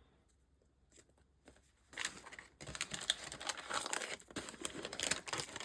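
Packaging being handled and torn open, crinkling and tearing, starting about two seconds in after a quiet moment.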